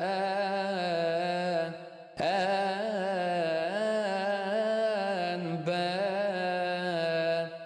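A man's solo voice chanting a Coptic hymn in Arabic, drawing out long notes with wavering melismatic ornaments. No accompaniment is heard. He breaks off briefly about two seconds in and again just before the end.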